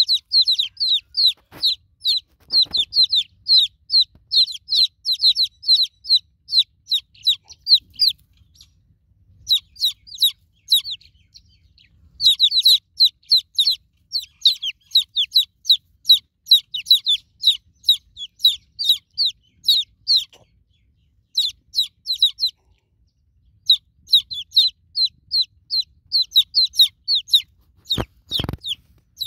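Newborn chicken chicks peeping: quick, high, downward-sliding peeps, several a second, in bouts broken by short pauses. A low thump sounds about a second before the end.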